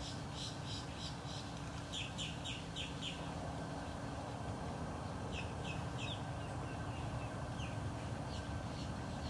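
A small bird chirping in quick runs of short, high notes, about three or four a second, pausing around the middle and then giving a few scattered chirps, over a steady outdoor background hiss.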